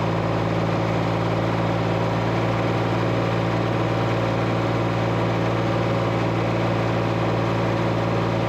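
Tractor engine held at a steady speed while running the round baler: a constant, even hum with no change in revs.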